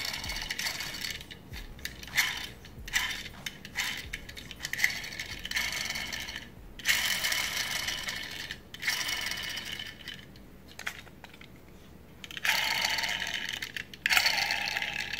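The gears of a shimmed Krytac V2 airsoft gearbox, with only the bevel, spur and sector gears fitted, spinning in repeated runs of one to two seconds with short pauses: a dry metallic whirring rattle, which the owner puts down to the bushings making noise.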